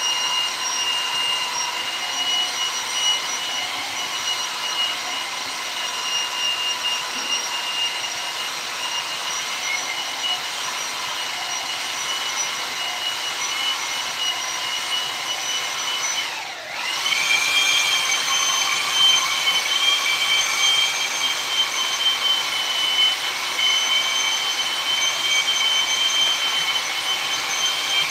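High-pitched electric power-tool motor running steadily in the woodcarving workshop; about two-thirds of the way through it briefly slows, dropping in pitch, then spins back up to a slightly higher, louder whine.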